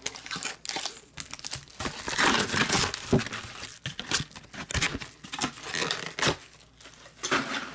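Plastic shrink wrap from a trading card box being crumpled and torn in irregular bursts of crinkling, with a few soft knocks of the box being handled.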